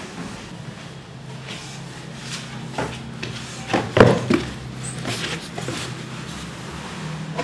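Knocks, thuds and scuffing footsteps from several people moving up a concrete staircase, over a low steady hum. A louder cluster of thuds comes about four seconds in.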